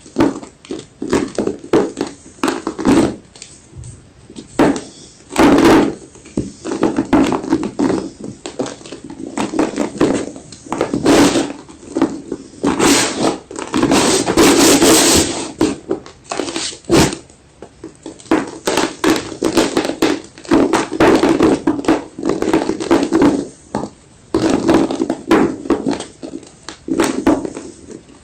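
Close-up crunching and chewing of white gym chalk: quick runs of sharp crackles and snaps, thickest about halfway through.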